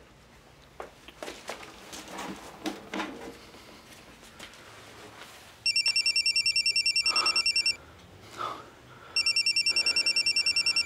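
A telephone ringing twice with a fast-warbling electronic trill, each ring about two seconds long with a pause between, after a few faint clicks.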